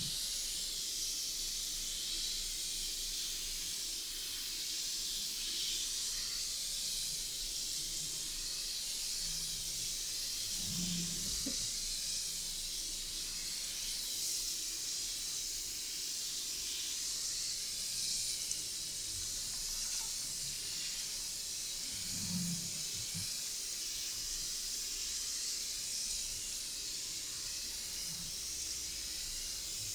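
Steady hiss of water spraying from a basin shower head during a hair wash.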